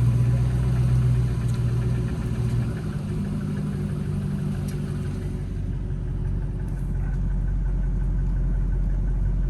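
A 2014 Jeep Grand Cherokee's 5.7 Hemi V8 idling cold, not yet warmed up, with a repetitive knocking under the engine note. The owner cannot place the knock and wonders whether it is lifter noise, piston slap or rod knock.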